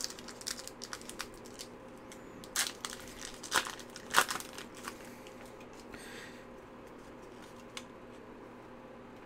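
A Pokémon booster pack's foil wrapper being torn open and crinkled by hand, with a few sharp crackles about two and a half to four seconds in and lighter rustling between.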